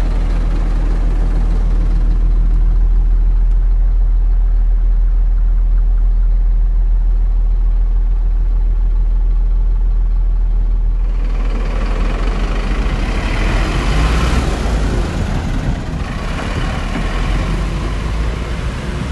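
Mercedes-Benz Atego 1218's four-cylinder diesel engine idling steadily, heard first from inside the cab. About eleven seconds in the sound opens up, with more hiss in the upper range, as the idling truck is heard from outside.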